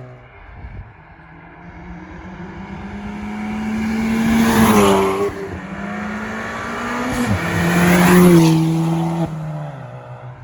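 Ford Fiesta ST's turbocharged four-cylinder through a decat KMS Hurricane exhaust, accelerating hard through the gears. The engine note climbs and gets louder, drops at a gear change about five seconds in, then climbs again and drops at a second shift near the end.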